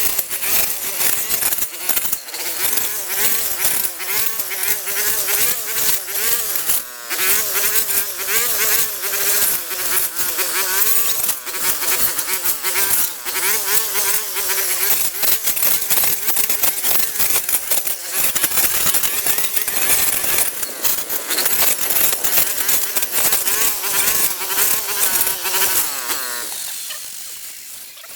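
Petrol brush cutter running at high revs, its buzzing pitch wavering as it cuts through grass and vines, with many quick snaps and hits. It fades away near the end.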